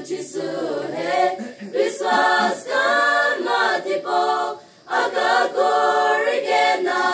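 Mixed youth choir of young women and men singing a hymn together, holding sustained notes, with a short breath pause a little past halfway.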